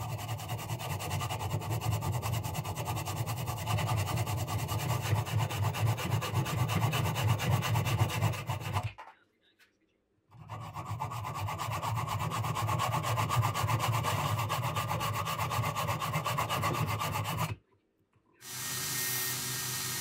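Hand hacksaw with a bimetal high-speed-steel blade cutting through a metal piece held in a vise, in quick back-and-forth strokes. There are two runs of sawing with a pause of about a second between them. Shortly before the end a belt grinder starts running with a steady noise.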